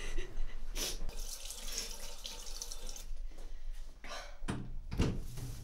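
Water running from a tap into a sink for a couple of seconds, with a few knocks around it.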